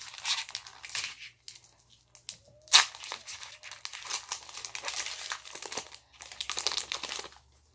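Foil Pokémon booster pack wrapper crinkling in irregular bursts as it is pulled and torn open by hand, with one sharp, loud crackle a little under three seconds in.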